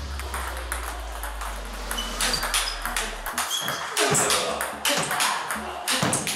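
Table tennis rally: the ball cracks off the paddles and ticks on the table in quick alternation, as topspin forehand drives are met with blocks. Heavy, well-spun drives alternate with lighter ones, and the heavier drives hit with a weightier impact sound.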